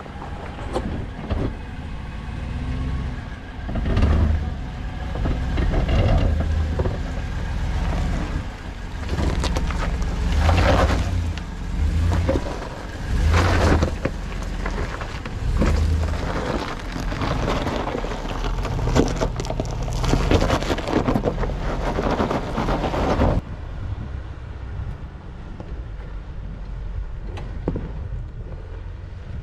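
Jeep driving slowly over a rocky dirt trail: engine rumble with uneven surges of tyres crunching and grinding over rock and gravel. Near the end it drops abruptly to a quieter, duller rumble.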